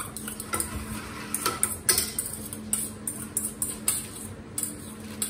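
A metal utensil clinking and scraping against a stainless steel bowl in irregular strokes as a salad is mixed.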